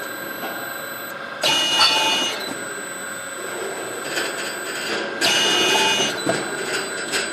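Industrial dough feeding and dosing machine running, with a steady high electric whine from its drives. A louder burst of machine noise starts suddenly about a second and a half in and again about five seconds in, as the dosing unit cycles and drops a portion of dough.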